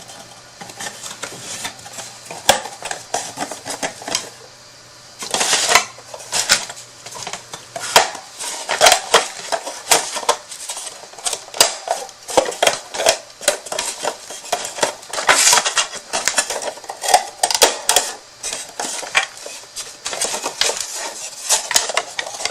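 Repeated clicks, taps and clatter of a small wooden marker storage box and markers being handled and set in place, sparse at first, with a brief pause about four seconds in, then busier from about eight seconds in.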